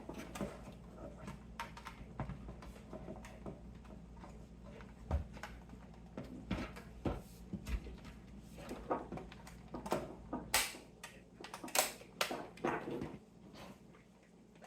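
Irregular clicks and knocks of plastic casing and parts being handled and fitted together as a DVD player is reassembled, over a steady low hum. The knocks come thicker and louder in the second half.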